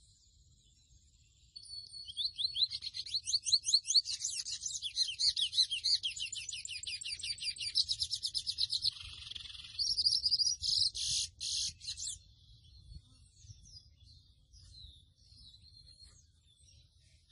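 Mochuelo ('pico de plata azul') seedeater singing: a long, fast twittering song of rapid high notes, closing with a few louder separate notes about ten seconds in. Faint scattered chirps follow.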